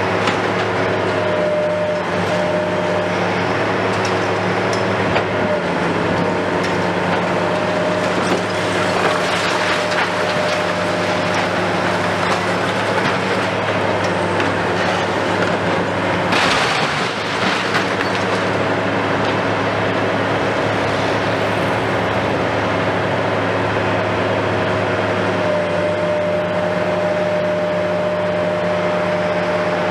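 Hitachi KMC 520 BTV high-reach demolition excavator running steadily, its diesel engine humming under a steady hydraulic whine, while its demolition attachment crunches concrete at the top of the building and debris knocks and clatters down. A brief louder rush of noise comes a little past the middle.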